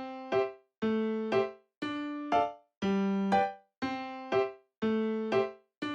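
Background music: a light electric-piano tune, pairs of notes about once a second with short silent gaps between them.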